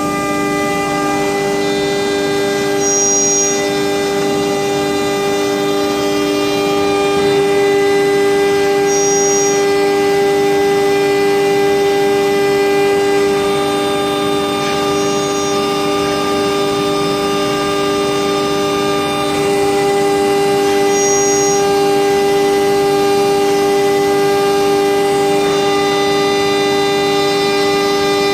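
CNC router spindle running at a steady high speed, a constant high-pitched whine with several tones, as its cutter carves a relief pattern into a wooden board.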